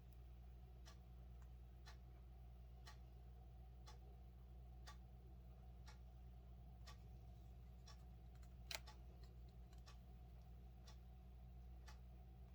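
A clock ticking faintly, about once a second, over a low steady hum, with one louder click about three quarters of the way through.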